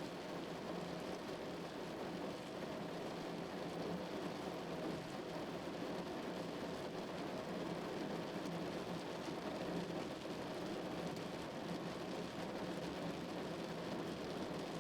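Heavy rain drumming steadily on a car's roof and body, a dense continuous patter without pauses.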